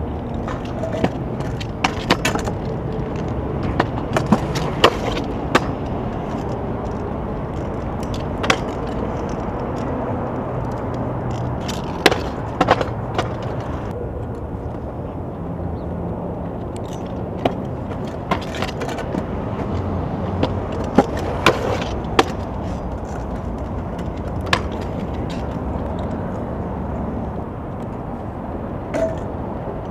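Hard small wheels rolling over rough concrete pavement: a steady rumble with sharp clicks and knocks scattered through it.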